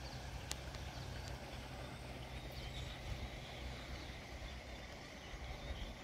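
Steady outdoor background noise with a low rumble, a single sharp click about half a second in, and a few faint high chirps around the middle.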